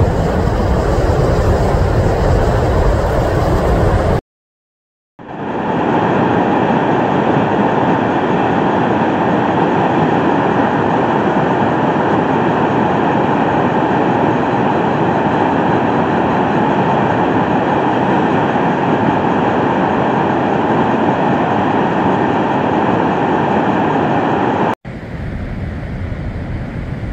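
Steady roar of Cumberland Falls, a broad river waterfall pouring over a rock ledge. It comes after a few seconds of wind rumbling on the microphone over choppy river water and a second of silence. Near the end it cuts to a quieter open-air hiss.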